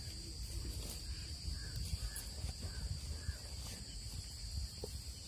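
Crickets trilling steadily in a high, unbroken drone, over a low steady rumble, with a few faint short chirps in the middle.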